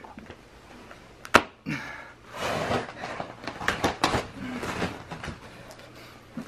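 Duct tape being wrenched, torn and crinkled in rough, noisy bursts as layers are pulled loose, with a sharp snap about a second and a half in.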